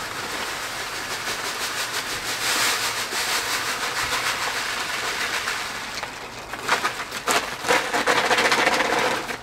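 Crushed malted grain pouring from a plastic bag into a cooler mash tun, a steady gritty hiss. Past the middle, the bag crinkles and rustles louder as it is shaken empty.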